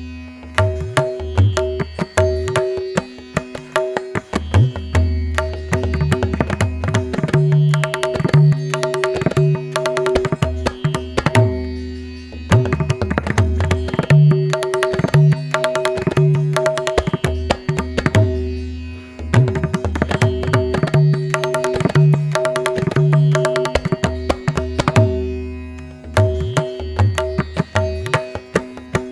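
Background music: rapid hand-drum strokes over a steady drone.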